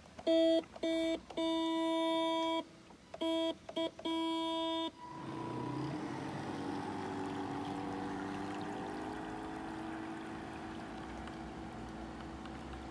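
A horn on one steady pitch sounds in a run of long and short blasts and stops about five seconds in. After that comes a steady watery rushing with a faint hum as the electric model boat runs through the water.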